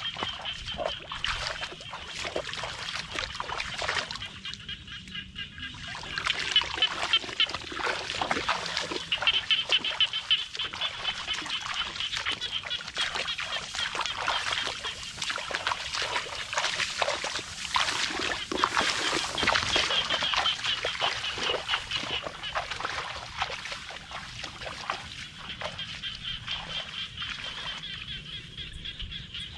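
Bare feet splashing and squelching step by step through a shallow, muddy water channel, over a steady high-pitched chorus of calling animals. The splashing steps are loudest in the middle stretch.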